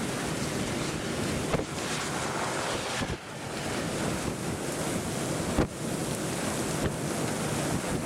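Strong wind buffeting the camera microphone in a steady rush, with a couple of sharp thumps about one and a half and five and a half seconds in.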